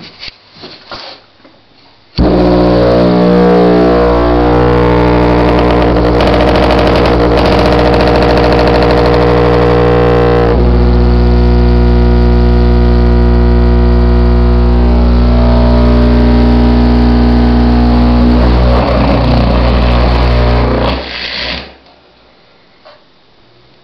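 Pair of Rockford Fosgate Punch P1 12-inch subwoofers in a sealed box driven directly by 110-volt AC mains, giving a very loud, steady buzzing hum at the mains frequency. It switches on suddenly about two seconds in, its tone shifts about halfway through as the drivers are overdriven, and it cuts off a couple of seconds before the end when they give out.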